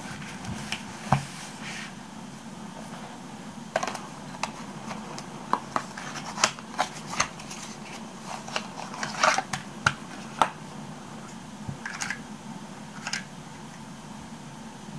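Small cardboard box being opened and a plastic Shiny rotating date stamp taken out by hand: a string of light clicks, taps and paper rustles. A soft knock about a second in as a spiral notebook is closed.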